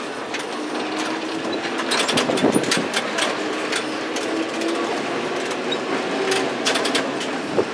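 1909 ASEA heritage tram running along street track, with a faint whine that rises slowly in pitch as it picks up speed, over steady running noise and frequent clicks and rattles from the wheels and the wooden body.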